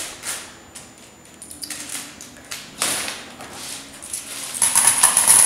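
Loose coins clinking and scraping as they are slid across a table and sorted by hand, in irregular handfuls, with a louder run of jingling near the end.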